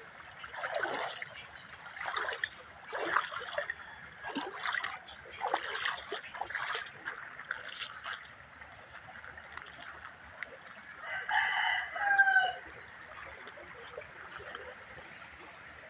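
Creek water splashing and trickling in irregular bursts, then a rooster crows once about two-thirds of the way through, the call ending on a falling note.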